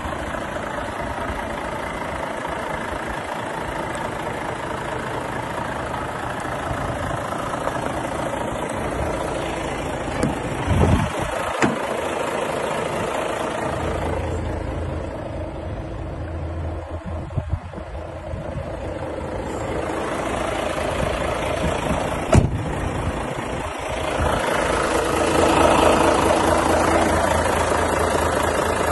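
Volvo FH 500 truck's 13-litre straight-six diesel idling steadily, growing louder near the end, with a few sharp knocks along the way.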